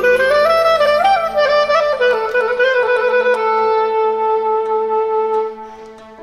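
Clarinet playing an ornamented Albanian folk melody. After about two seconds it settles on one long held note that fades away near the end, over a faint, steady low accompanying note.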